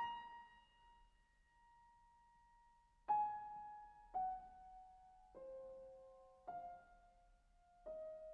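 Background music: slow solo piano playing single notes, each ringing and fading before the next.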